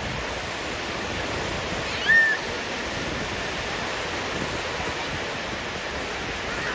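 Sea surf washing steadily onto a beach, an even rushing noise. About two seconds in comes a short, high-pitched call that bends in pitch.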